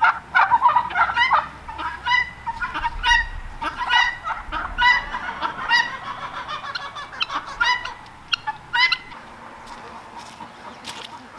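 Free-ranging poultry flock of guinea fowl and chickens calling, with loud, harsh, honking calls repeated about once a second that die down about nine seconds in.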